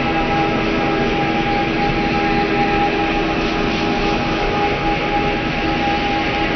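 A steady drone of dense rushing noise with several held tones, unchanging in level.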